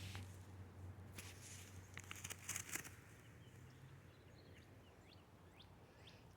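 Faint outdoor ambience: distant birds chirping now and then, with a few soft scuffing sounds between about one and three seconds in.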